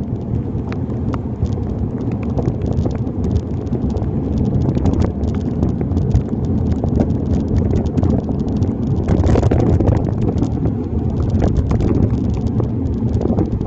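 Riding a bicycle in heavy rain, heard through a handlebar-mounted phone in a waterproof bag: a steady rushing of wind and road noise with many irregular sharp taps, as raindrops hit the bag. A louder hiss comes about nine seconds in.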